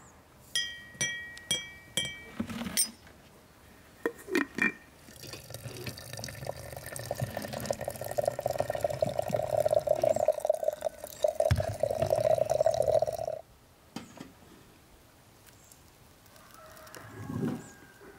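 A metal teaspoon clinks four times with a bright ring, then a couple more times. After that, water runs from a brass samovar's tap into a porcelain teapot for about eight seconds, the loudest sound, and stops abruptly.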